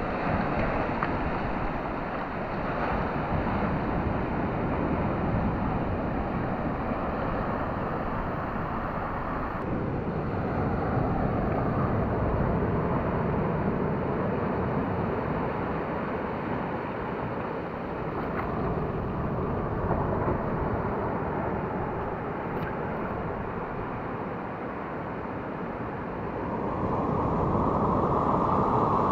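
Ocean surf breaking and washing over a rocky reef shore, a steady rush of water with wind buffeting the microphone. It grows louder near the end.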